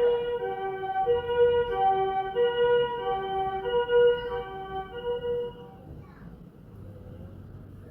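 Two-tone hi-lo emergency-vehicle siren alternating evenly between a high and a low note about every two-thirds of a second, then stopping a little under six seconds in.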